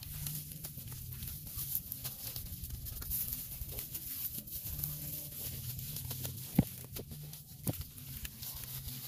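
Hands patting and pressing wet mud onto a mound, with soft scattered slaps and two sharper slaps a second apart near the end.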